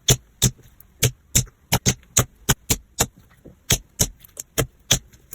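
Slime being pressed and poked by hand, giving an irregular run of sharp, short pops and clicks, about three a second.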